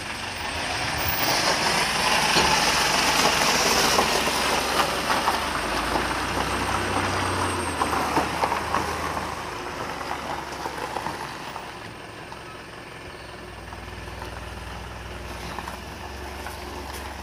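Tow truck's engine running as it pulls in towing a jeep on its wheel-lift, with a steady low hum throughout. The sound is fullest in the first several seconds and settles to a quieter idle-like run after about ten seconds.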